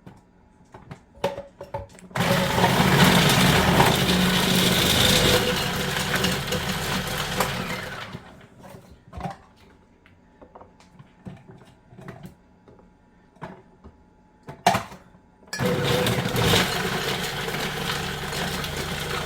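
Food processor with a grater attachment shredding carrots, running in two long bursts: one starts about two seconds in and lasts several seconds, the other starts near the end. Light clicks and taps fill the pause between.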